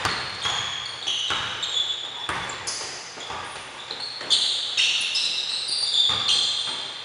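Basketball dribbled and bouncing on a hardwood gym floor, with sneakers squeaking sharply as players run and cut. The thuds and squeaks echo in the large gym.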